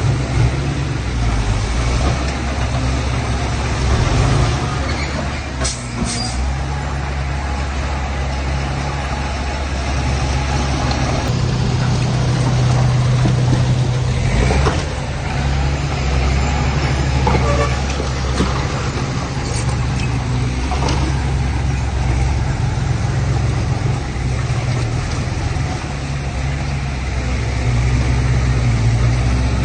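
Heavy diesel engine of earth-moving machinery running steadily, with a few short clanks or hisses scattered through.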